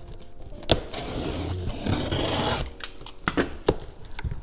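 Utility knife slicing through the packing tape along the top seam of a cardboard box: a click, then about two seconds of continuous scraping as the blade runs along the seam. This is followed by scattered clicks and rustles of the cardboard flaps being handled.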